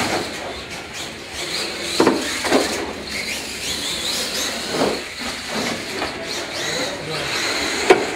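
Radio-controlled monster trucks racing on a smooth floor: a steady high-pitched motor whine and tyre noise, broken by a few sharp knocks about two, two and a half, five and eight seconds in.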